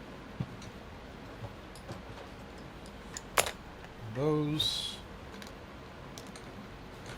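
Repair tools being picked up and set down on a workbench: scattered light clicks and one sharper knock about three and a half seconds in.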